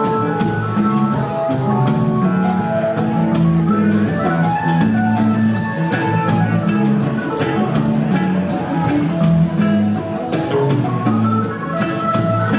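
A band playing a reggae song with no singing: drum kit keeping a steady beat under guitar and bass.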